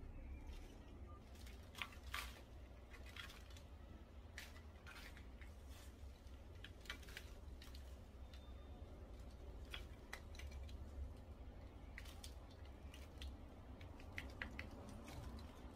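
Gloved hands crumbling and loosening potting soil from a weeping fig's root ball, giving scattered soft crackles and small clicks, with a steady low hum underneath.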